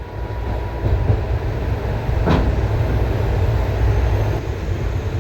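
Indian Railways train rumbling steadily, loud and heavy, swelling over the first second. A short sharp sound cuts through about two seconds in.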